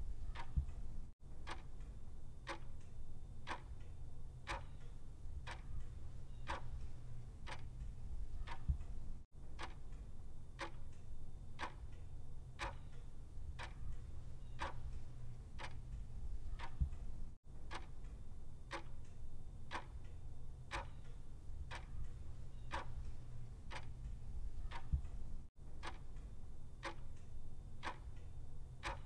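Clock ticking steadily, about one tick a second, over a low steady hum. The sound cuts out briefly about every eight seconds.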